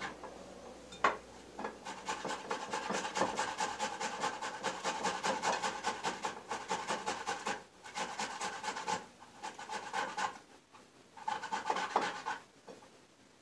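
Boiled carrot being grated on a box grater: fast, rhythmic rasping strokes in runs with short breaks, stopping shortly before the end.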